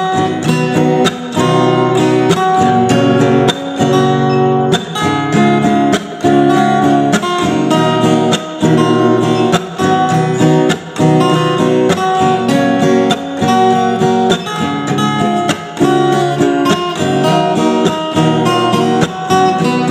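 Acoustic band playing the instrumental intro of a pop-rock song, led by a rhythmically strummed acoustic guitar; the sound fills out with more high-end brightness about five seconds in.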